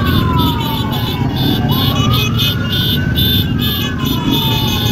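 Emergency-vehicle siren on a slow wail, its pitch falling, rising and falling again about every three seconds, over a dense background din.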